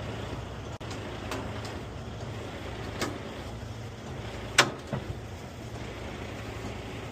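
A heavy vehicle's engine idling steadily, with a few sharp knocks or clanks over it, the loudest about four and a half seconds in.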